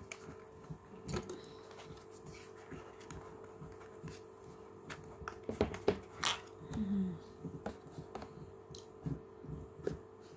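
Hands handling a plastic camera case and its packaging: scattered light clicks, taps and rustling, with a louder cluster of knocks a little past the middle.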